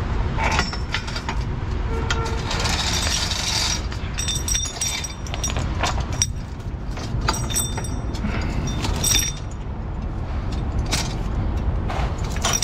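Heavy metal chain and fittings clinking and rattling as they are handled, in many short irregular clinks over a steady low rumble.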